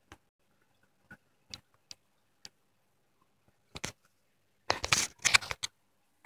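Faint scattered clicks, then about four and a half seconds in, a second of louder, choppy, broken-up sound as the internet radio stream starts to play.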